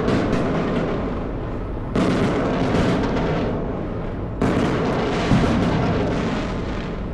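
Fireworks going off: sudden loud bursts about two seconds in and again just past four seconds, each followed by a dense crackle that slowly fades.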